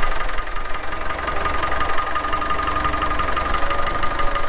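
Tractor engine running steadily with a low rumble and a steady whine, as the tractor pulls ahead.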